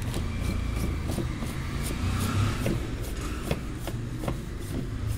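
Plastic cup of a new gravity-feed paint spray gun being handled, giving light rubbing and scattered small clicks, over a steady low hum.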